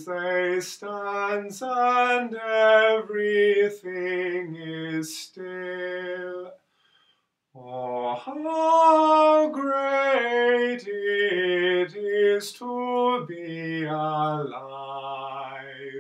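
A man singing solo and unaccompanied, improvising freely: a string of short separate notes, a pause of about a second near the middle, then longer held notes.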